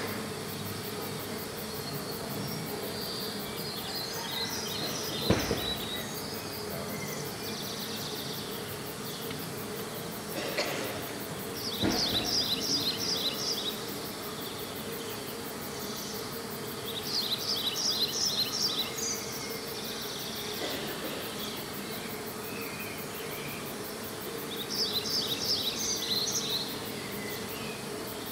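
Didgeridoo playing a steady drone, with four bursts of high, rapid, cricket-like chirping trills over it and a couple of sharp knocks.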